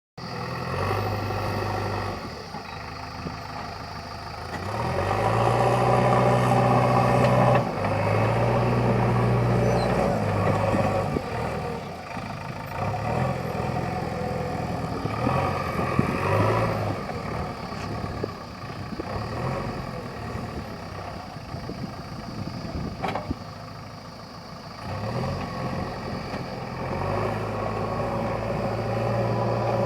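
JCB 3DX backhoe loader's diesel engine running, repeatedly revving up and settling back in cycles as the machine works. A single sharp knock about three quarters of the way through.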